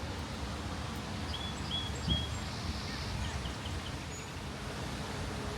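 A small bird chirping: three short, evenly spaced rising chirps, then a quick run of softer ones, over a steady low outdoor rumble. A brief low thump about two seconds in.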